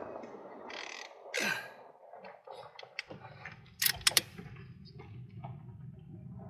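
Bolt of a bolt-action rimfire rifle being worked: a quick run of three sharp metallic clicks about four seconds in, after a lone click and some handling rustle.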